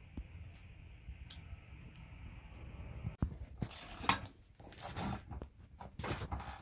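Scattered metallic clinks and rattles from a ratchet socket wrench and steel towbar brackets being handled, with a few louder clatters in the second half.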